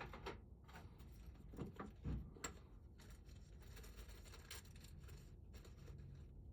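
Faint scattered clicks and light scrapes of a small tool working at the C-clip on a lock cylinder, over low room noise.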